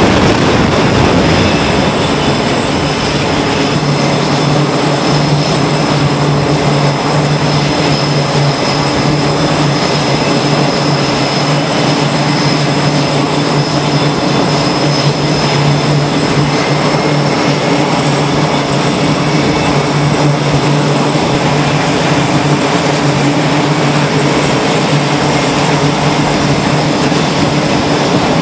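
Aircraft engines running on a carrier flight deck: a steady, loud drone with a high whine on top. The noise of a just-launched jet fades in the first couple of seconds, and a low hum sets in about four seconds in.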